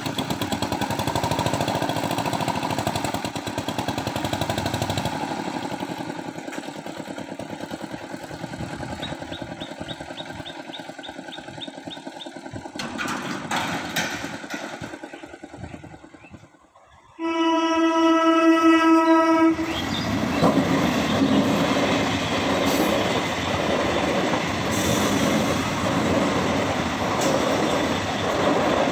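An EMU local train's horn sounds one steady blast of about two seconds, the loudest thing here. The electric train then runs past with steady rolling wheel-on-rail noise and clickety-clack. Before the horn there is steady engine and traffic noise.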